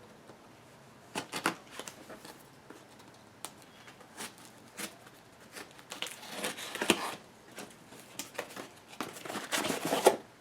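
The box and packaging of a Focusrite Scarlett 2i2 audio interface being opened and handled: irregular bursts of crinkling and tearing with scattered clicks, busiest about a second in, around the middle, and near the end.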